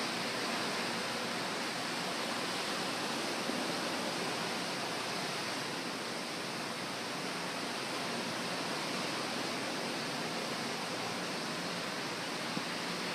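Sea surf giving a steady, even wash of noise, with no distinct breaking waves standing out.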